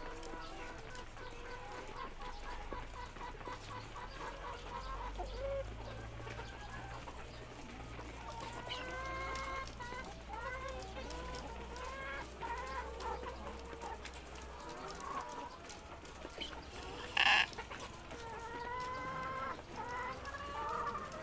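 Chickens clucking and calling in short, often rising calls, with one brief, loud, harsh sound near the end. The bird in question is a chicken with 'ngorok', the snoring breath of a respiratory illness.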